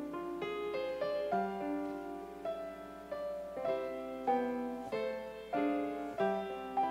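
Piano playing slow chords and a melody, a new note or chord struck about every half second.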